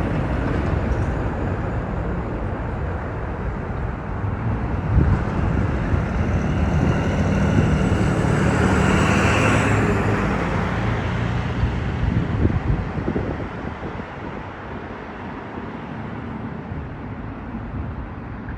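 A motor vehicle passes by on a road. Its engine and tyre noise grows to a peak around the middle, then fades away.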